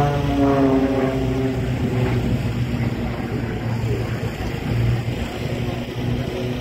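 Aircraft flying past, its engine note falling in pitch as it goes by over the first second or so, then settling into a steady low drone.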